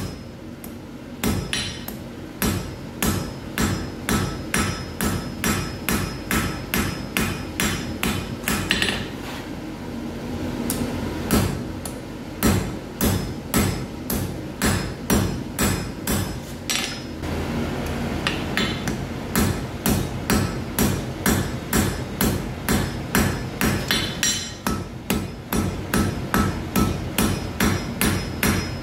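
Hand hammer striking red-hot iron on an anvil in a steady rhythm of about two blows a second, each blow ringing briefly; the blows stop for a moment about two-thirds of the way through, then carry on.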